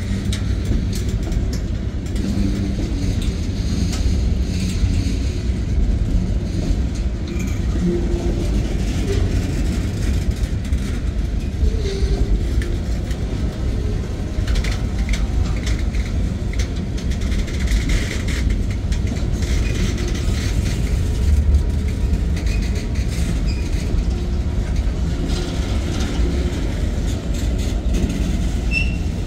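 Manifest freight train's boxcars and tank cars rolling past: a steady low rumble of steel wheels on rail, with scattered clicks and knocks from the wheels and couplers.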